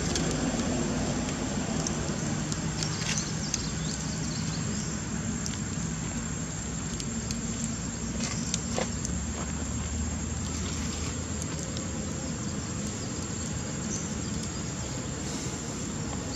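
Steady outdoor background noise: a low rumble like distant traffic under an even hiss, with a thin steady high tone throughout and a few faint clicks.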